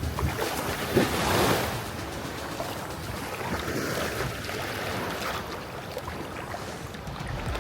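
Small sea waves washing onto a sandy shore, with one louder wash about a second in, and wind buffeting the microphone.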